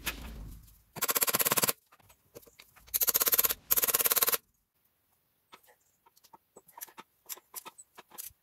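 An impact wrench hammering in three short bursts, each under a second, on a badly corroded, seized bolt of the EGR cooler, followed by a few light metallic clicks.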